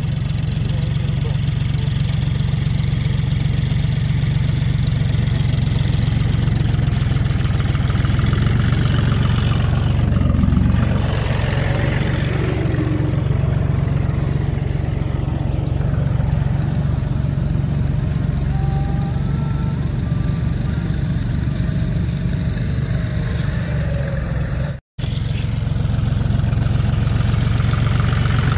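John Deere tractor diesel engine running steadily under load while pulling a plough through the soil. The sound cuts out for a moment near the end.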